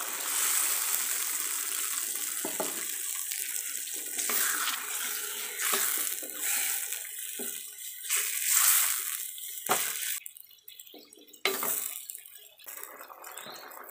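Tamarind water poured from a plastic cup into a pan of simmering fish curry, then stirred in with a wooden spatula: a steady watery hiss and bubbling that drops away about ten seconds in. Two sharp knocks follow as the spatula strikes the pan.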